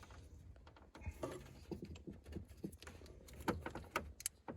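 Scattered light clicks and small knocks of plastic as a pink/salmon convertible-roof relay is wiggled out of its socket, its plastic retaining tabs lifted aside.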